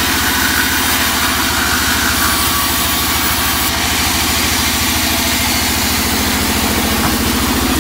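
Large vertical band saw running steadily with a rhythmic low pulsing, its blade cutting through a teak plank during the first couple of seconds.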